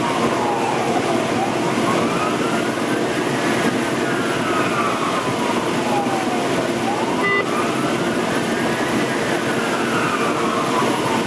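Fire engine siren sounding a slow wail, its pitch climbing and falling over a few seconds at a time, heard from inside the cab over the steady running of the truck's engine and road noise.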